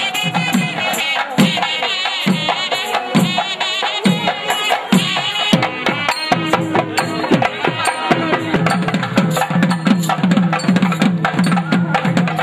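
Folk drumming: drums beating a steady rhythm with sharp strokes, with a wavering high melody over them for the first few seconds. The low drumbeats come closer together in the second half.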